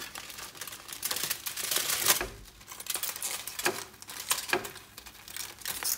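Aluminium foil crinkling and rustling in irregular bursts as a foil packet is handled and unwrapped, loudest about two seconds in.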